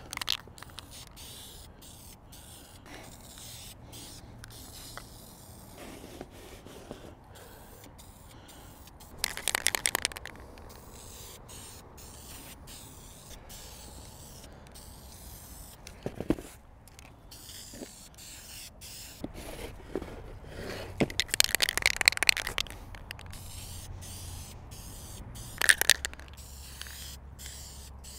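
Aerosol can of gray primer spray paint spraying in spurts, with a few louder, crackly hissing bursts about ten seconds in, for a couple of seconds around twenty-two seconds, and briefly near the end.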